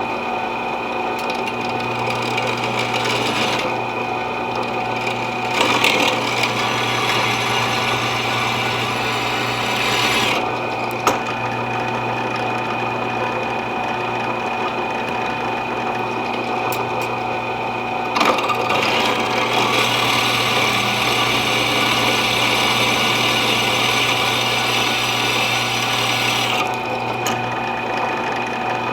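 Electric drill running steadily, with two long stretches of louder cutting noise as the bit bores holes, starting about 4 s in and about 18 s in.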